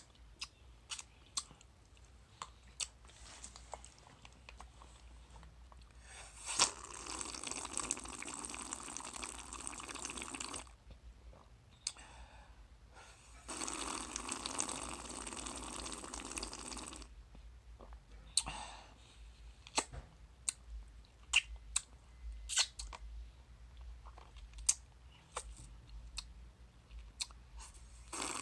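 A drink sucked up through a plastic straw from a lidded plastic tumbler, close to the microphone: two long sucking pulls of a few seconds each, about six and thirteen seconds in, and a shorter one near nineteen seconds. Short sharp clicks fall before and after the pulls.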